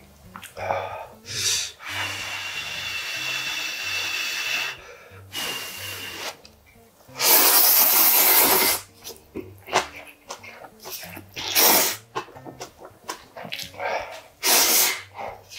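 A person slurping hot instant ramen noodles from a wooden ladle: a long breathy hiss first, then a loud drawn-in slurp a little past halfway and shorter slurps near the end, with small mouth sounds between.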